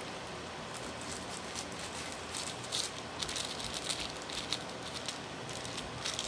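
Faint rustling and crinkling of packaging being handled: a small plastic packet and paper insert fiddled with in the hands, in light scratchy bursts through the middle of the stretch over a steady background hiss.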